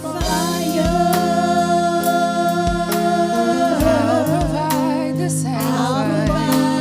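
Gospel worship music: a voice holds long, wavering sung notes over sustained keyboard chords, with a kick drum thumping regularly underneath.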